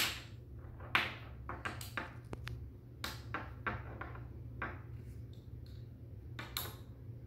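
Magnetic building sticks clicking as their ends snap onto metal connector balls and tap on a wooden tabletop: a dozen or so sharp, irregularly spaced clicks, the loudest about a second in.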